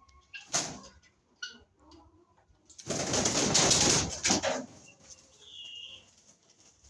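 Birds, with a loud rustling burst about three seconds in that lasts about a second and a half, and a short high call near the end.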